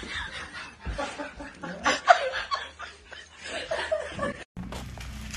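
A person snickering and chuckling in short, uneven bursts of stifled laughter. It cuts off abruptly about four and a half seconds in, and a steady low hum follows.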